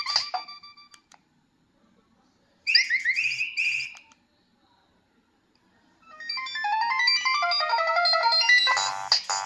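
Nokia 3120b mobile phone playing its preloaded ringtones through its small speaker. One electronic tune fades out in the first second. A short burst of rising chirps comes about three seconds in, then a new melody starts about six seconds in and grows fuller near the end.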